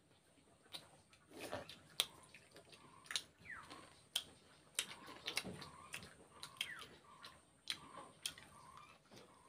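Close-up eating sounds: wet mouth clicks and lip smacks while chewing rice and curry, with fingers working the rice on a steel plate. A few faint falling chirps are heard in the background.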